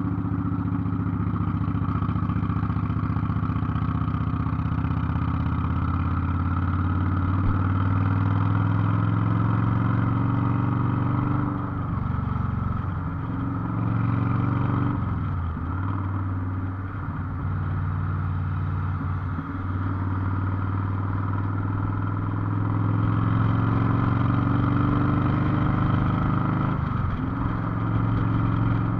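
Cruiser motorcycle's engine running steadily while riding. It has several brief dips in engine pitch in the middle and one more near the end, as the throttle eases and picks up again.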